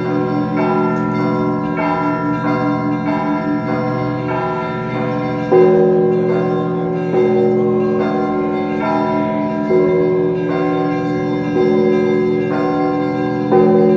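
Orthodox church bells ringing a festive peal: smaller bells struck in a steady rhythm of about one and a half strikes a second over a ringing drone, with a deeper, louder bell coming in about every four seconds.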